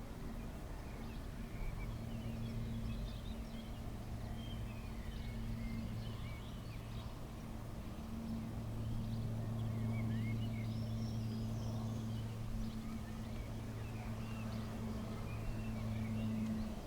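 Small birds chirping and twittering, over a steady low hum that stops suddenly near the end.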